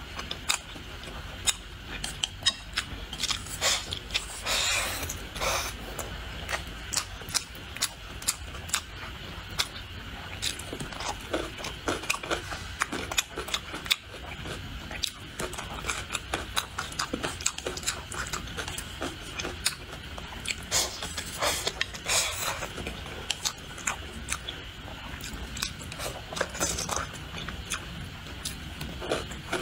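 Close-up eating sounds: chewing and biting crisp food such as cucumber and green pepper with rice, many sharp crunches and wet mouth clicks. A few longer crunching or slurping bursts stand out.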